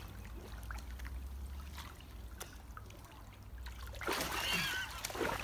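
Water lapping and trickling in a small inflatable pool while a man is held under, then louder splashing with a short voice-like gasp as he surfaces, about four seconds in.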